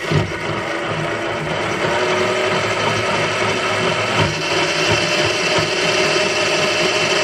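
Electric motor and geared drivetrain of a T-Wolf TW-715 scale RC crawler running with its wheels spinning freely off the ground in second gear: a steady mechanical whirr with a gear whine.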